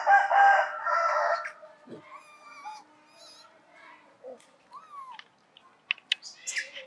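A loud pitched animal call lasting about a second and a half at the start, then thin high bird chirps and a few sharp clicks near the end.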